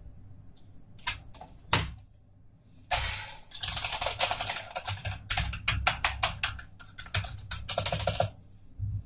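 Razer Cyclosa membrane keyboard being typed on. A couple of single key presses are followed, about three seconds in, by some five seconds of fast, dense typing with both hands, which stops near the end.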